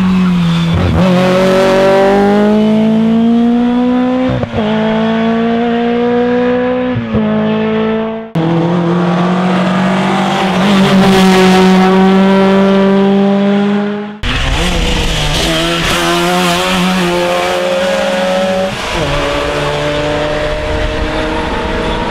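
Rally car engines running at full throttle in three short clips one after another. Each engine note rises and then drops sharply at the gear changes, about twice in the first clip and twice in the last. In between, one car holds a steady high engine note.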